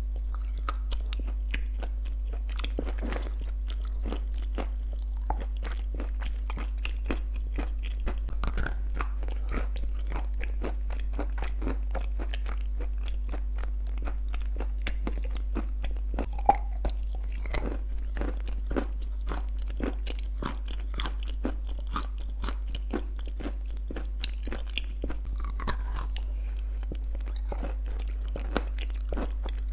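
Crunchy clay 'shortbread cookies' being bitten and chewed close to the microphone: a dense, irregular run of sharp crunches and chewing, one crunch louder than the rest a little past the middle. A steady low hum runs underneath.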